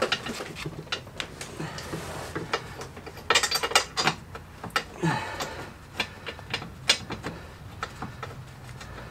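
Irregular metallic clicks and clinks of tools and bolts on the front anti-roll bar bush clamp as the clamp bolts are worked into their threads, with a quick run of clicks about three and a half seconds in.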